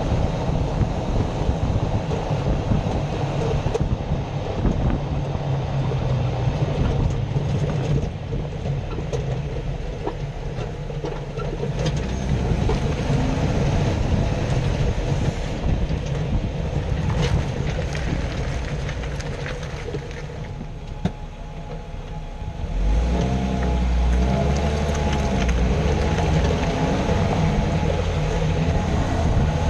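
A Jeep Wrangler JK driving, heard from underneath: a steady road and drivetrain rumble with scattered ticks. The underside is being recorded to find a grinding noise. The rumble drops off about two-thirds of the way through, then picks up again with a low pitch that rises and falls.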